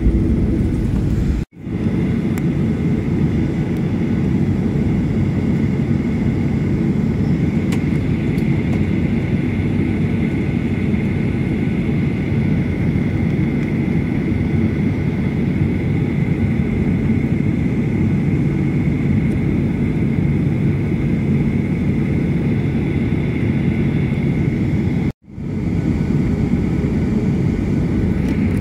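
Jet airliner cabin noise: a steady low rumble of the engines and airflow with a thin steady whine over it, heard from inside the cabin. It cuts out abruptly for a moment twice, about a second and a half in and near the end.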